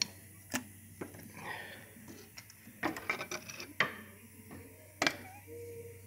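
Scattered metallic clicks and knocks of hand work on a tractor transmission housing: a few single knocks and a quick cluster of clinks about halfway through.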